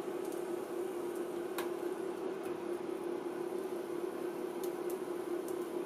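A steady electrical hum with a few sharp ticks scattered through it, the clearest about one and a half seconds in, as a circuit board's pins sit in a pot of molten lead-free solder.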